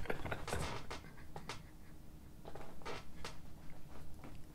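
Quiet room tone with a few faint, short clicks and rustles scattered through it.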